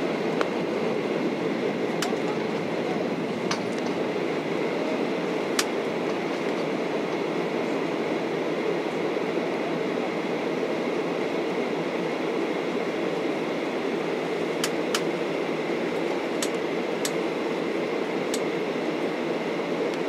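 Steady cabin noise inside a Boeing 737-800 taxiing: an even rumble and hiss from the engines at low power and the cabin air, with a few sharp ticks now and then.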